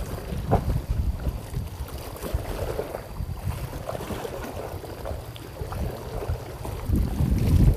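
Wind buffeting the microphone: an uneven, gusty low rumble that swells shortly before the end, with a short knock about half a second in.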